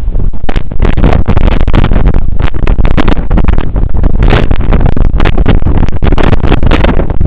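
Strong wind buffeting the camera's microphone: a loud, distorted, irregular rumble with rapid gusty flutter.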